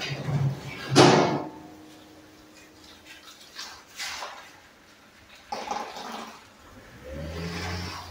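Volvo XC90 backing out and driving off across a lot, a rush of engine and tyre noise loudest about a second in, then fading, with a low engine hum coming up again near the end.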